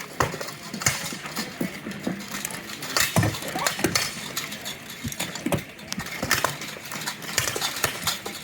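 Irregular metallic clanks and knocks of blunted steel weapons and plate armour striking in an armoured duel, several sharp hits a second with some ringing.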